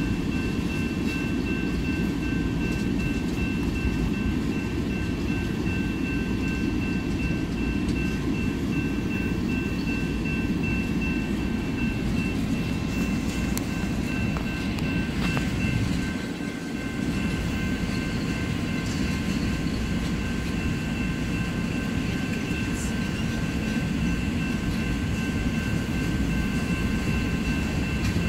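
Freight train's tank cars rolling past close by: a steady, dense rumble of wheels on rail, with a thin high-pitched tone held over it, briefly easing about sixteen seconds in.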